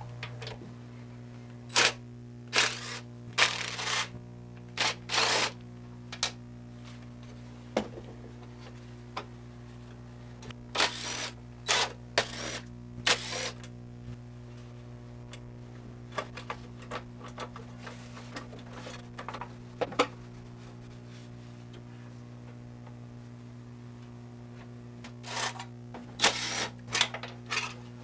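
Scattered sharp clicks and clattering, as of small hard objects being handled, coming in clusters over a steady low electrical hum.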